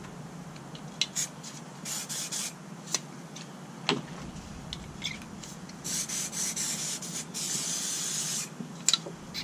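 Acetone cleaner sprayed through spray-paint caps in short hissing spurts to clear paint out of them, ending in a longer burst of about a second. A few light clicks of the plastic caps being handled.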